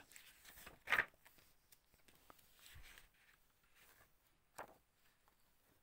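Faint handling of a printed comic book: soft paper rustles, with a short rustle about a second in and a sharper one about four and a half seconds in.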